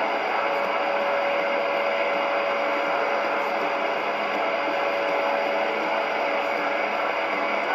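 Hockey arena crowd roar after a goal, a loud unbroken wash of noise, with one steady tone held through most of it.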